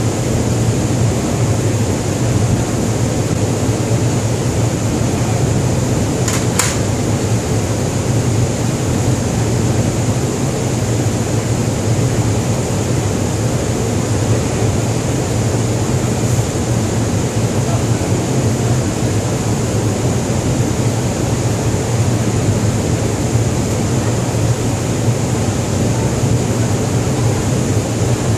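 Steady low drone of a ship's machinery and ventilation, with one short click about six seconds in.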